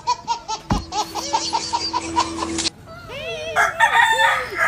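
Several girls laughing hard, mouths full of marshmallows: quick rhythmic bursts of laughter, with a steady tone under it from about a second in until nearly three seconds, then high squealing laughs near the end.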